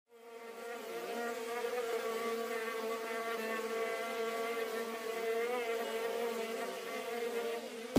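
Bees buzzing: a steady, slightly wavering hum that fades in at the start and cuts off suddenly at the end.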